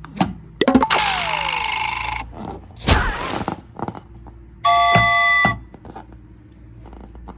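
A string of short, separate sounds: a falling whistle-like tone about a second in over a noisy rattle, a sharp knock near three seconds, and a steady bell-like chime of several tones for under a second in the middle.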